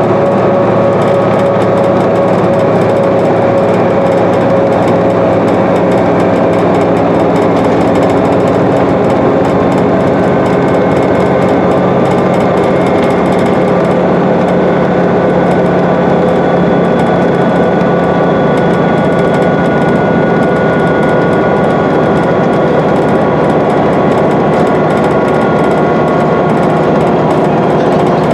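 Inside a 2011 New Flyer D60LFR articulated bus moving at freeway speed: its Cummins ISL 8.9-litre diesel engine and Allison B500R six-speed automatic drivetrain run steadily under road and tyre noise. Several steady whining tones drift slowly in pitch.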